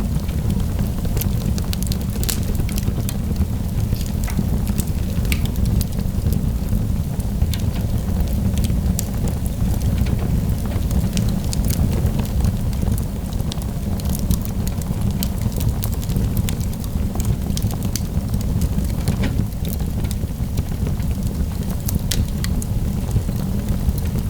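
Wood fire burning in a fireplace, crackling with many scattered sharp pops over a steady low rumble.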